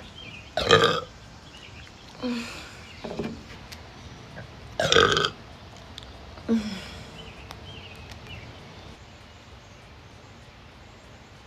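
A woman burping loudly after chugging soda: about five burps in a row, the two biggest about a second in and about five seconds in, with weaker ones between.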